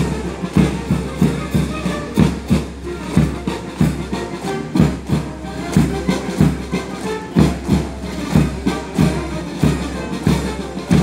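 Background music with a steady drum beat over a low bass.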